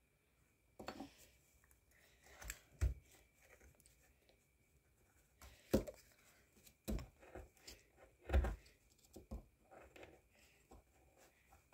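Irregular scrapes and knocks of a small plastic pick digging into a crumbly plaster dig-kit block, with some rustling as the block and paper towel are handled.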